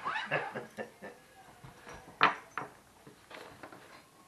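A man's laughter trailing off, then a few sharp clicks and knocks of small objects being handled on a desk, the loudest about two seconds in.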